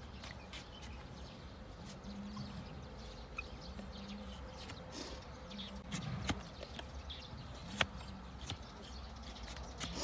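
Broad hoof-trimming blade slicing through a donkey's overgrown hoof horn and striking the wooden block beneath, as scattered sharp cuts and knocks, the loudest a little after six seconds and near eight seconds.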